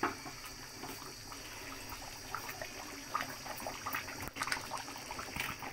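Tamarind fish curry simmering in an open pot, bubbling with scattered small pops and ticks.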